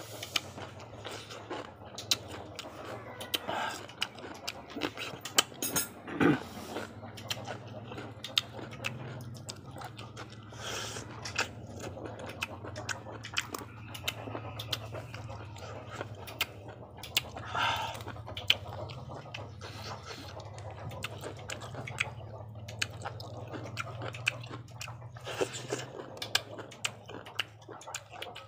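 Close-up eating sounds: chewing and crunching of raw vegetables and octopus, many short clicks and crunches, over a steady low hum.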